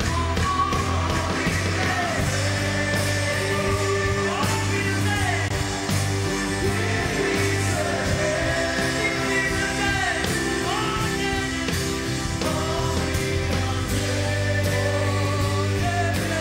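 Live rock band playing electric bass, guitars and drums, with sung vocals over it.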